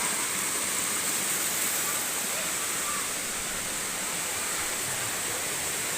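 Waterfall rushing steadily, its water in full flow.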